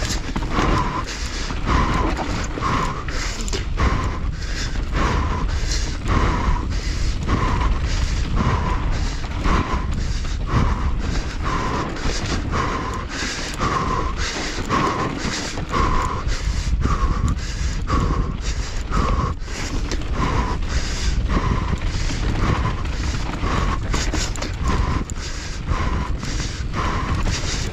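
Mountain bike running fast down a rough dirt trail: wind and tyre noise with steady rattling over bumps. Over it, the rider's hard, rhythmic breathing, about one and a half breaths a second, from the effort of a race stage.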